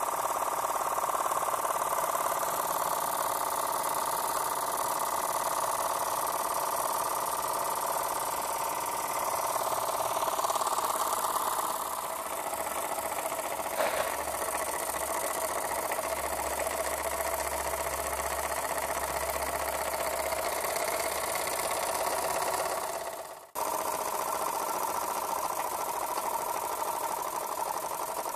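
A small, decades-old toy stationary steam engine running at speed: a rapid, steady chuffing of exhaust steam with a hiss, and one short click about halfway through.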